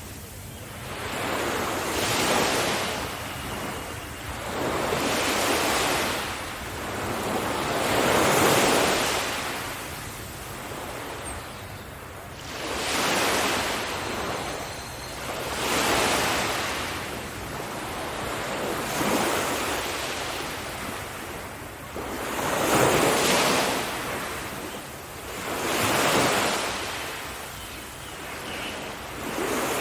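Ocean waves breaking on a beach, each surge of surf swelling and washing back about every three seconds, with wind noise on the microphone.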